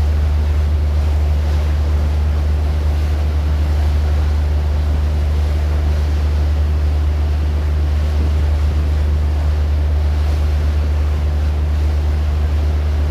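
Steady low drone of a passenger ferry's engines heard from on board, with the rush of water along the hull and wind on the microphone.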